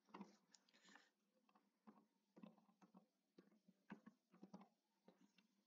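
Faint, irregular keystrokes on a computer keyboard as text is typed, short clicks with pauses between them.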